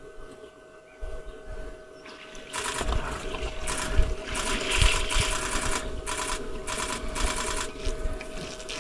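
Camera shutters firing in rapid continuous bursts, starting about two and a half seconds in, with short pauses between bursts and a few low knocks underneath.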